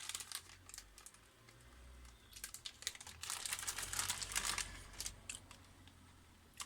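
Close-up chewing of slow-roasted chicken bites, with small mouth clicks and a crinkling plastic snack packet, the sounds busiest about halfway through.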